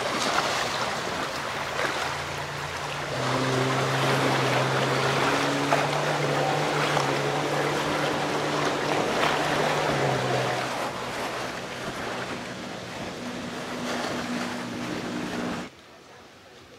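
Choppy lake water washing against the shore, with wind. Over it a jet ski's engine runs offshore at a fairly steady pitch, from about three seconds in to about eleven and again briefly near the end. Everything drops away suddenly shortly before the end.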